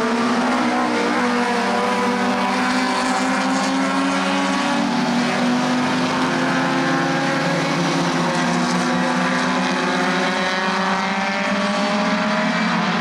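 A pack of 1300 cc four-cylinder touring cars (Ladas, Samaras, a Zastava) racing past at high revs, several engine notes overlapping and slowly rising in pitch.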